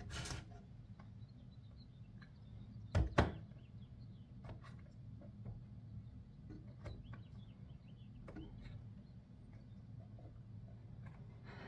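Knocks and small clicks from a plastic radio casing being handled: a double knock about three seconds in, then scattered light clicks over a low steady hum, with faint high chirps in between.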